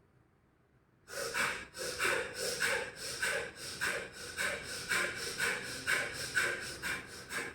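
A woman doing the fast version of bhastrika (bellows breath) pranayama: forceful, rapid breaths in and out through the nose, the exhalations pushed hardest. They come at about three a second, starting about a second in after a moment of quiet.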